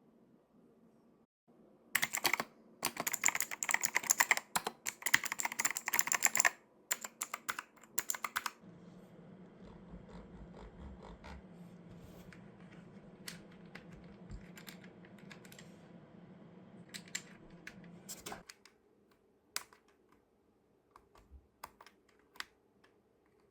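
Typing on an AJAZZ K992 gasket-mounted mechanical keyboard: a fast run of dense key clicks for several seconds, then slower scattered keystrokes over a faint low hum.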